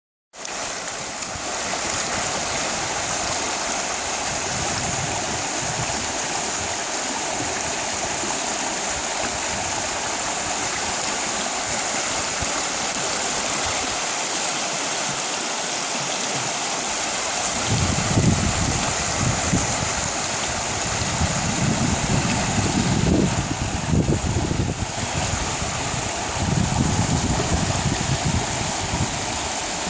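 South Yuba River rushing and gurgling over rocks in a steady, even wash. From about halfway through, irregular low rumbles break in over it.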